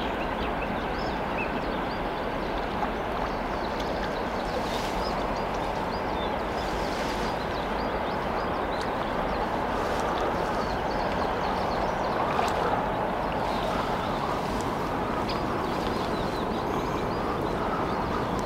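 River water rushing steadily over a shallow riffle.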